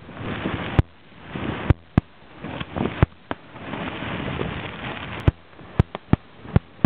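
Aerial firework shells bursting: about eight sharp bangs at uneven intervals, with a rushing, rumbling noise swelling between them.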